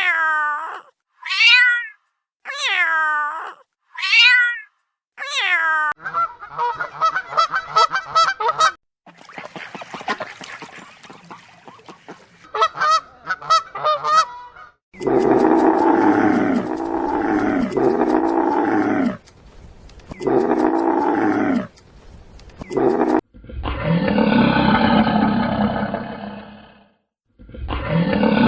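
A string of separate animal calls: about four cat meows, each falling in pitch, in the first six seconds, then other animal calls and cries, the loudest being long drawn-out calls from about the middle on.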